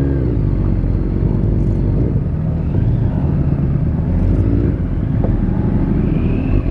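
Suzuki GSX-R sport bike's inline-four engine running at low revs as the motorcycle pulls away from a standstill and rides off.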